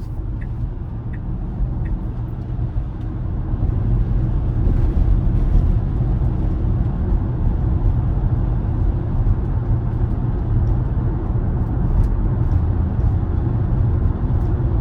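Tyre and road noise heard inside the cabin of a Tesla Model Y driving on wet, snowmelt-covered pavement: a steady low rumble that grows a little louder about four seconds in. A few light, evenly spaced ticks sound in the first two seconds.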